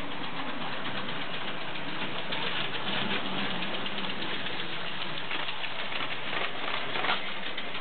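Lego 12-volt toy trains running on their track: a steady whirr of the electric motors under a dense, continuous rattle of wheels clattering along the rails.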